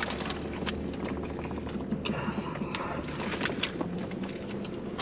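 A man chewing a big bite of a burger, with small clicks and crinkles of its paper wrapper, over a steady low hum in a car cabin.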